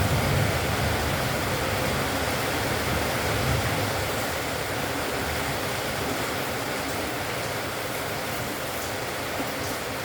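Steady rushing noise, even across high and low pitches, with a low rumble that fades out about four seconds in.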